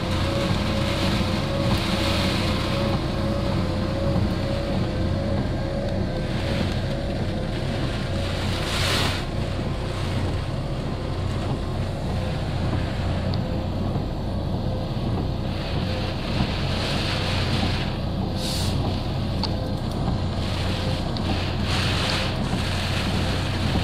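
Car engine running steadily, heard from inside the cabin, with a wash of water noise from the tyres as the car drives through floodwater covering the road.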